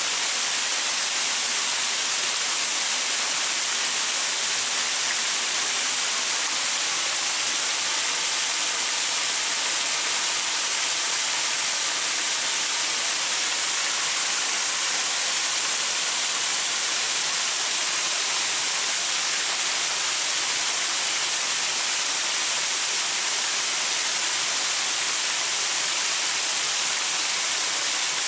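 A small waterfall pouring over rocks: a steady, even rush of falling and splashing water, bright and hissy, with no change.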